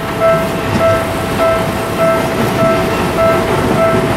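Japanese level-crossing alarm ringing its steady electronic ding, about every 0.6 seconds, while an electric commuter train rumbles past on the tracks.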